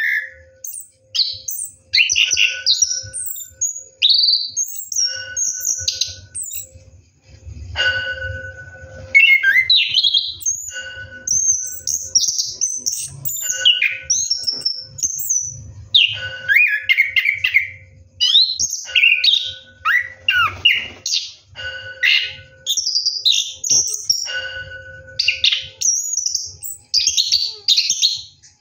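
Chestnut-capped thrush (anis kembang) singing almost without pause: a long rolling run of quick, varied whistled phrases.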